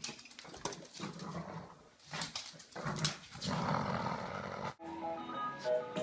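A dog growling in play, with scuffling and clicks, typical of a tug over an object. About five seconds in it breaks off and plucked-string background music begins.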